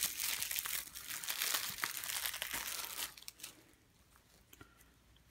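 Plastic shrink-wrap crinkling as it is peeled off a Blu-ray case, for about three seconds, followed by a few faint clicks.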